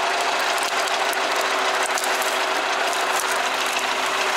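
DT-75 crawler tractor's diesel engine running steadily at idle: a fast, even mechanical clatter over a steady hum.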